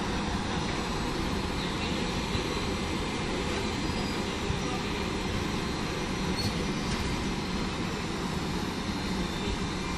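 Steady rushing hum of an E464 electric locomotive standing at the platform with its cooling fans running.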